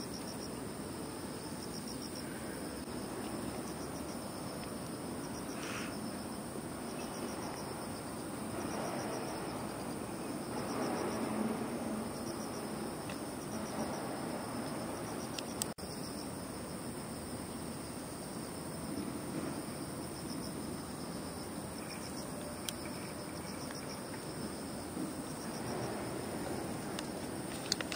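Insects chirping in a steady, evenly pulsed high trill over a low background hum, with one sharp click about halfway through.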